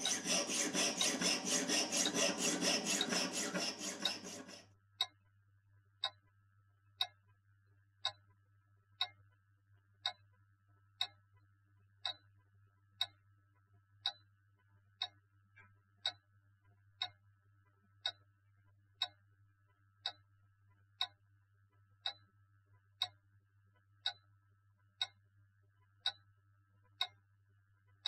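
A jeweller's piercing saw cutting metal held in a bench vise, in quick rapid strokes for about the first four and a half seconds. Then a clock ticks evenly, once a second.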